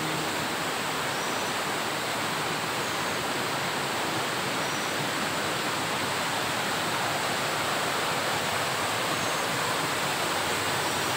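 Waterfall: water plunging and splashing in a steady, even rush.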